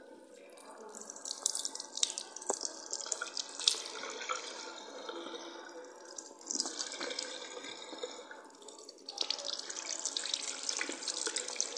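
Water from a bathroom sink tap splashing as a face is washed with the hands, in three spells with short lulls between.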